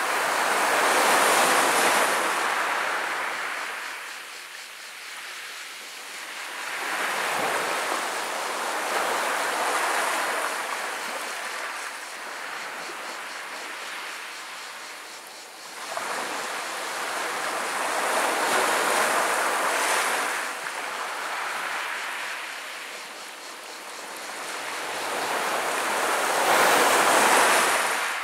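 Small sea waves breaking gently and washing up over a pebble beach. Each surge swells and falls away, about four in all, several seconds apart.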